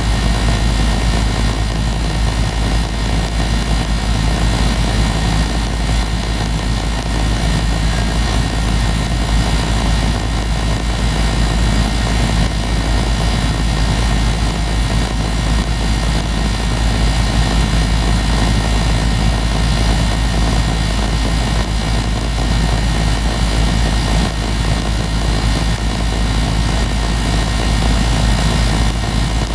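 2018 Goodman 2.5-ton gas pack running steadily in cooling mode, heard from beside the compressor: a loud, even low hum with a steady rush of air over it.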